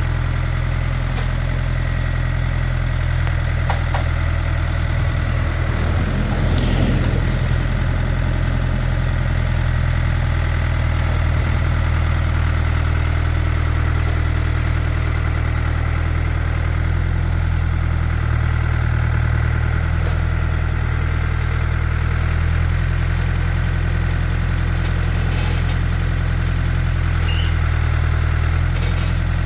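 Farm tractor's engine running steadily at a low, even pitch. A brief, louder noise sounds over it about seven seconds in.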